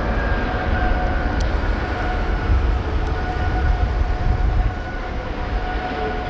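Steady industrial hum of shipyard machinery: a constant whine over a low, wavering rumble.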